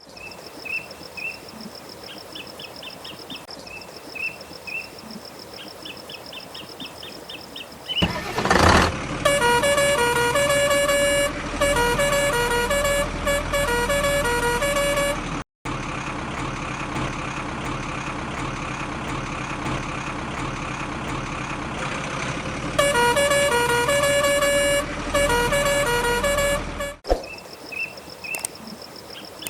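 Vehicle horn playing a tune of short, repeated notes, twice, with a steady vehicle rumble in between. Before and after, it is quieter, with faint chirping.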